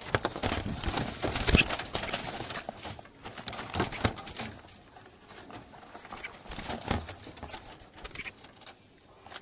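Clatter and knocks of a bird trap's door being opened and a hand reaching in to take out a caught bulbul, busiest in the first three seconds, then fainter scattered clicks.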